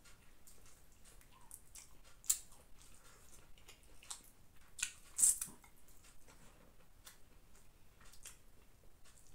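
Close-up eating sounds: wet chewing and lip-smacking of a mouthful of chicken biryani eaten by hand, with soft scrapes of fingers gathering rice on a banana leaf. Scattered small clicks, with a few louder ones, the loudest about five seconds in.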